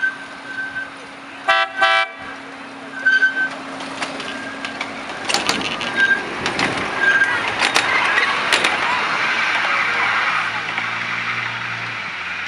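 Ride-on miniature streamliner train's horn giving two short toots, then the train running close past with a rising and falling rush of noise and several sharp clicks.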